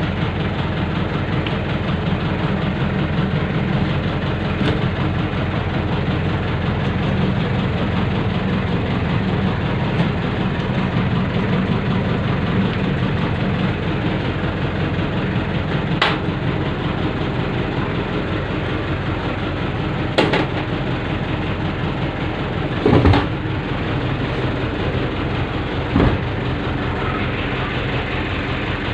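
Car engine idling steadily. A few short knocks or clacks sound over it in the second half.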